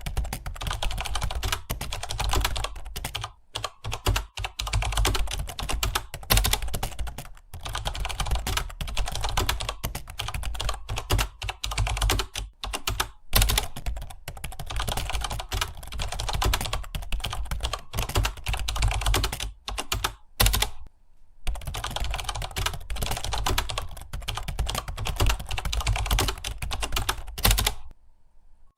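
Fast, continuous typing on a computer keyboard, rapid key clicks with a few short pauses, one about two-thirds of the way in and another near the end.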